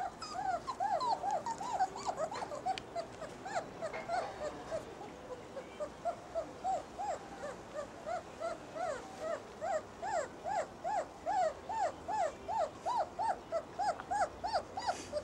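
Young basset hound puppy whimpering: a long series of short high whines that rise and fall in pitch, irregular at first, then a regular string of about three a second from about halfway through.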